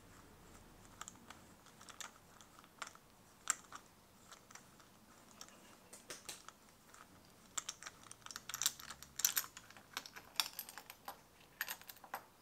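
Irregular light clicks and small scrapes of a tool and the ignition stick coil against the magnesium cylinder head cover of a 2005 BMW R1200GS as the coil is eased out of the spark plug well. The clicks come thicker in the second half.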